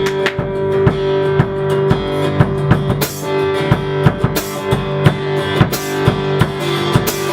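Instrumental break in a live rock song: guitar with drums keeping a steady beat.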